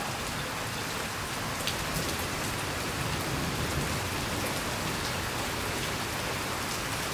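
Heavy rain pouring down and splashing on hard surfaces, a steady hiss with faint scattered drip ticks.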